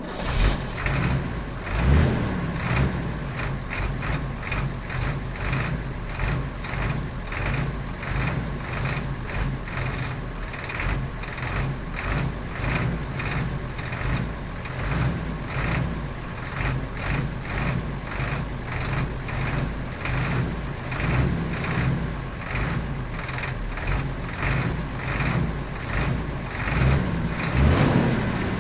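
Diesel vehicle engine running with a steady rhythmic clatter, briefly revved about two seconds in and again near the end.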